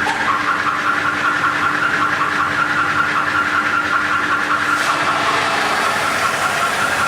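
Spring end wet grinder running steadily: a constant machine hum with a high whine on top, and a short click about five seconds in.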